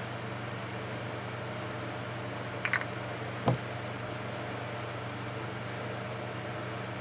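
Steady low background hum while craft pieces and tools are handled on a desk. A few light clicks come together just before the middle, then one sharper click.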